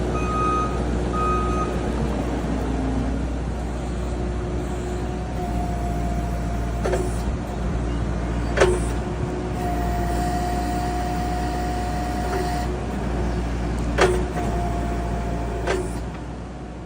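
Skid steer running steadily while the operator works the pallet forks, its backup alarm beeping a couple of times at the start. A steady whine comes and goes three times, and four sharp metal clanks stand out over the engine.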